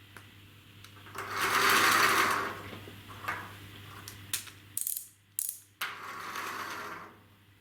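3D-printed wind-up car's plastic gear train whirring as its spring unwinds, twice, with a few sharp clicks and knocks of plastic between the two runs.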